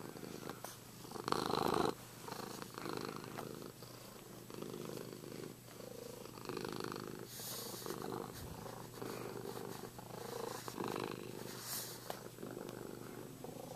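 Sphynx cat purring close to the microphone, the purr swelling and fading about once a second with its breathing. There is a louder burst about a second and a half in.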